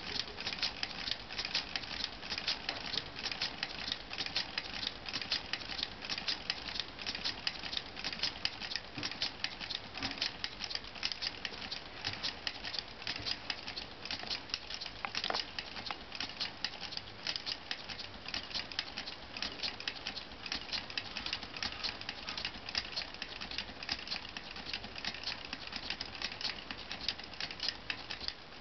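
LEGO two-cylinder pneumatic engine running steadily: a rapid, even clatter of clicks from its plastic cylinders, valves and spinning flywheel.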